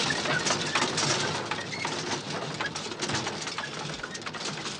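Wooden-and-metal handcart rattling and clattering as it is pushed over cobblestones, growing fainter as it moves away, with a few short high chirps.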